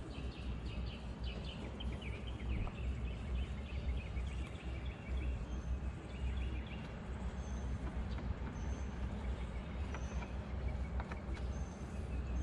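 Outdoor background of a steady low rumble with birds chirping: quick runs of chirps in the first few seconds, then thin, high single peeps. A few faint clicks and rustles come from hands working a bungee cord around the kayak.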